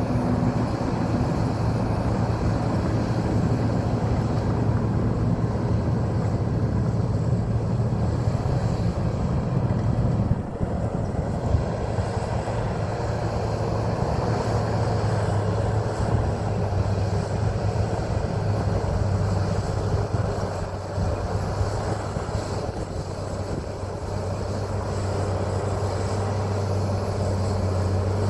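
John Deere 750J crawler bulldozer's diesel engine running steadily under load while it pushes clay, with a brief dip in level about ten seconds in.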